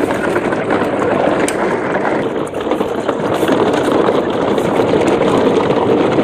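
Steady churning and sloshing of muddy water as a line of loaded plastic toy dump trucks is pulled through a shallow channel.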